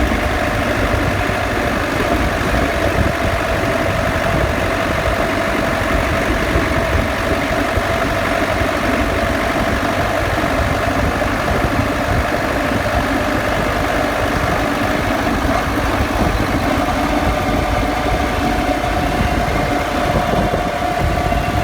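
Land Rover Defender under way: a steady whine from the differential over the drivetrain and road rumble, the whine drifting slightly in pitch. It is a noise that came on after the vehicle was lifted.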